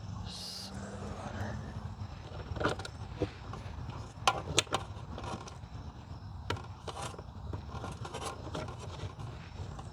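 Small plastic and metal connector parts being handled and fitted, giving scattered sharp clicks and light scraping, with the strongest clicks a little past the middle. A steady low rumble runs underneath.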